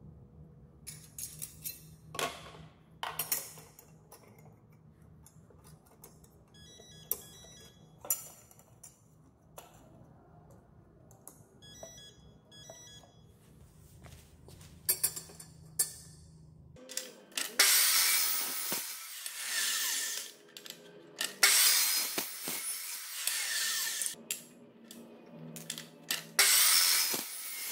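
Light metal clicks and knocks as steel strap brackets are handled and set on a hoverboard's plastic body, then an abrasive cut-off saw cutting aluminium tube in three loud bursts with short pauses between.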